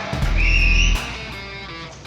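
Background music led by electric guitar, with a heavy bass note in the first second that then eases off.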